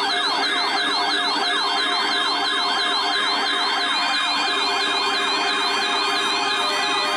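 Several electronic sirens yelping at once, their fast rising-and-falling sweeps overlapping at slightly different rates over a few steady tones.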